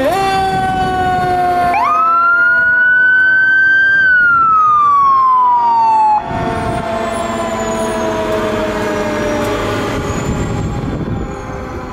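Fire truck sirens sounding together. One siren winds slowly down in pitch, while a second rises sharply about two seconds in, holds, and falls away after about four seconds. About six seconds in the sound changes abruptly to a rumbling vehicle noise with a siren still slowly falling.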